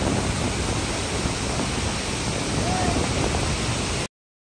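Wind buffeting the microphone over choppy lake water lapping at the side of a moving boat, a steady rushing noise that cuts off abruptly about four seconds in.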